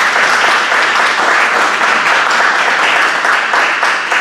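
A room full of people applauding, many hands clapping together steadily.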